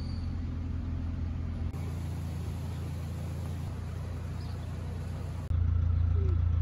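Narrowboat's diesel engine running steadily, with a low, even beat; it gets louder about five and a half seconds in.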